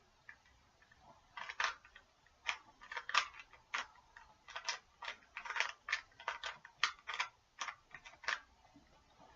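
A plastic Rubik's Cube having its layers turned by hand: a run of quick, irregular clicks and clacks that starts about a second in and stops shortly before the end.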